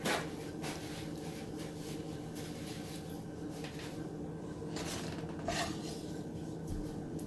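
Light kitchen handling noises, a few short knocks and rubs of dishes or utensils, over a steady low hum.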